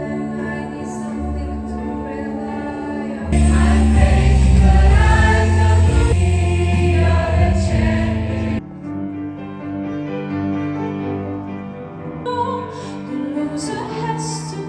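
Music with choir-like singing over long held chords. It swells much louder, with heavy bass, about three seconds in, and drops back to a softer passage at about nine seconds.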